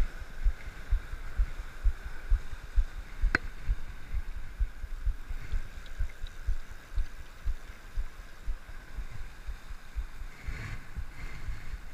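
Irregular low thumps and rumble on a head-worn action camera's microphone, over a faint rush of river water, with one sharp click about three and a half seconds in.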